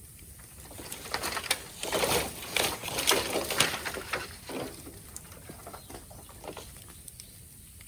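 Bonfire of raw green bamboo crackling and hissing, a surge of sharp pops building about a second in and dying back by the middle.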